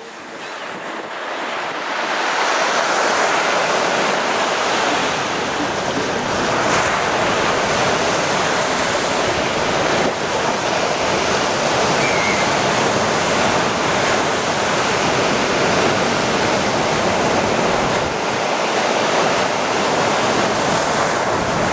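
Heavy storm surf on the Black Sea: waves breaking and washing up the beach in a loud, steady roar of water noise. The roar builds up over the first couple of seconds.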